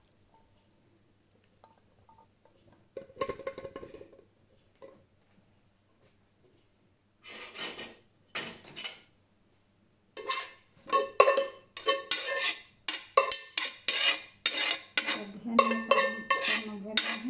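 Metal cooking pot and kitchenware clanking and knocking as they are handled at the sink: a few scattered knocks first, then a dense run of ringing clanks in the second half.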